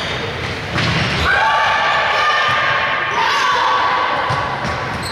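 Volleyball play in a sports hall: a sharp echoing hit of the ball about a second in, followed by players calling out.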